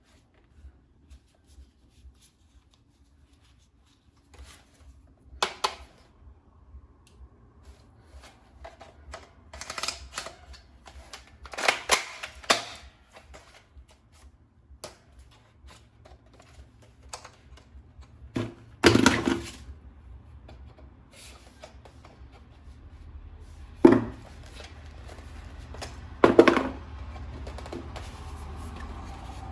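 Plastic toy parts being handled: scattered light clicks and rattles with a few sharper knocks and snaps, and a faint low hum coming in past the middle.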